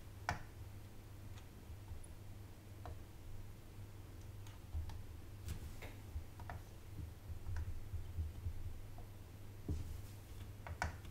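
Soldering iron and solder wire working along the solder pads of a motherboard: faint, irregular small clicks and ticks, about ten in all, over a low steady hum.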